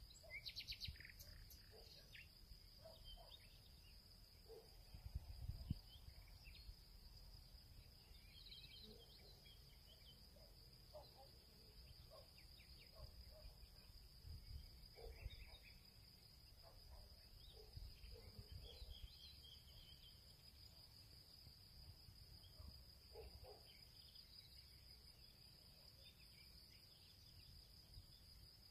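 Near silence: quiet room tone with a steady faint high-pitched tone throughout, faint scattered small taps, and a soft knock about five seconds in.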